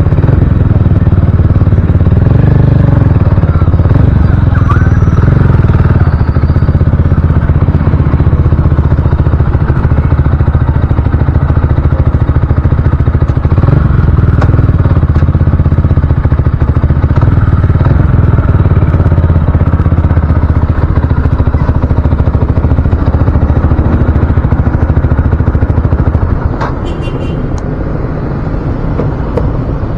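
Heavy wind noise buffeting a chin-mounted helmet microphone on a moving motorcycle, a loud, steady low rumble with the motorcycle running underneath. The wind noise drops noticeably near the end.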